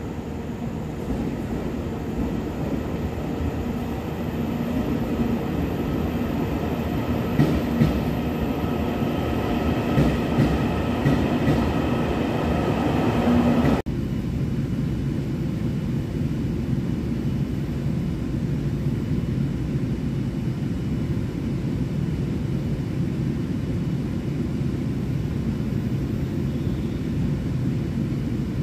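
A train's rumble at a station platform, growing louder for about the first half, with steady whining tones and a few knocks over it. An abrupt cut then gives way to a steady low hum inside a stopped electric commuter train car.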